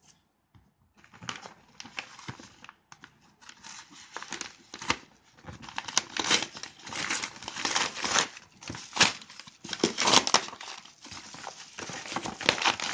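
A brown-paper mailing package torn open by hand. There is a long run of crinkling and ripping paper, starting about a second in, as the wrapping is pulled away from the bubble-wrapped parcel inside.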